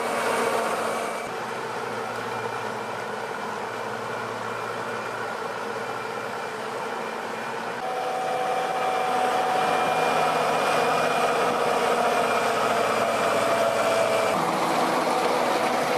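Diesel engine of a Valtra forestry tractor running steadily while it hauls a load of logs through mud. About eight seconds in the sound gets louder, with a steady high whine, and it changes again near the end.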